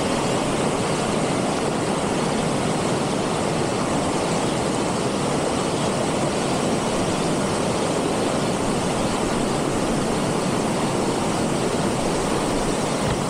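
Mountain stream rushing over a rocky cascade: a steady, loud rush of white water.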